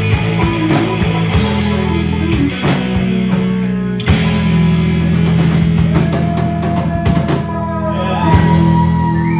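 Rock band playing live: drum kit, guitar and bass holding long low notes, with sliding, wavering high notes coming in near the end.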